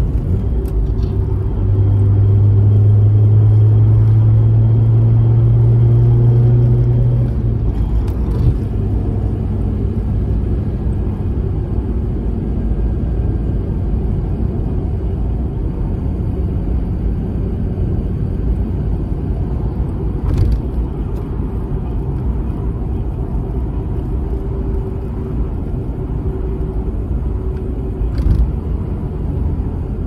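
Mazda RX-8's twin-rotor engine and road noise heard from inside the cabin while driving. A strong, steady engine note runs for about six seconds and drops away about seven seconds in. After that comes a steady low rumble with a few short knocks.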